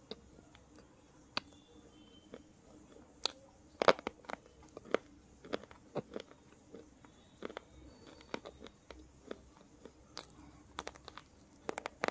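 Slate pencil being bitten and chewed: a run of sharp, dry crunches and snaps at uneven intervals, the loudest about four seconds in, with a quick cluster near the end.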